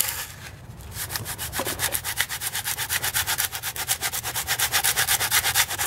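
Flat metal scraper blade rasping rapidly back and forth over green, not yet fully hardened cement, about six strokes a second, starting about a second in. It is shaving down a high spot to flatten the surface.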